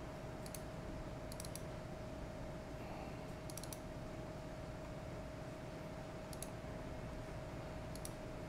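Computer mouse clicks, mostly quick double-clicks, in five short clusters a second or more apart, as folders are opened, over a steady faint hum.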